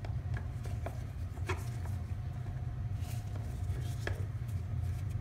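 A few light, separate clicks and taps of a screwdriver working at the plastic air filter cover on a Briggs & Stratton 140cc OHV mower engine, prying it open, over a steady low rumble.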